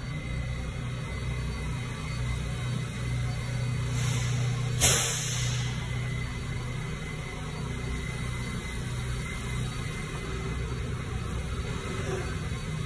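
Steady low hum of subway trains standing at the platform. About five seconds in comes a short, sharp hiss of air venting from a train.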